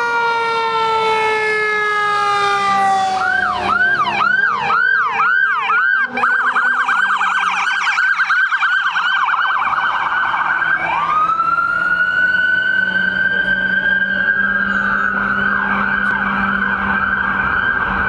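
Fire apparatus sirens. First a siren tone falls slowly in pitch, then an electronic siren yelps in quick repeated sweeps that speed up about six seconds in. About eleven seconds in it switches to a rising wail that holds high, with a fast warble near the end.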